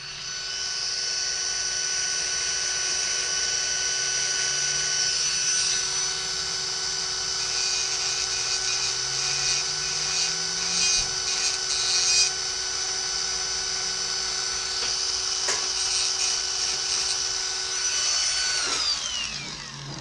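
A power tool's motor running at a steady high speed with a steady whine, then winding down with a falling pitch near the end.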